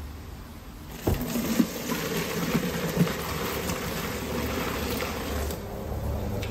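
Hot fish stock poured from a pot through a plastic colander into a stainless steel sink: a knock about a second in, then a steady splashing rush of liquid that thins out near the end.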